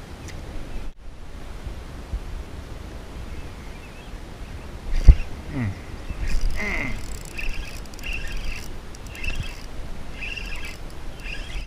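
Wind buffeting the microphone, with a sharp knock about five seconds in. After it come a few short falling-pitch sounds and then repeated short high chirps through the second half.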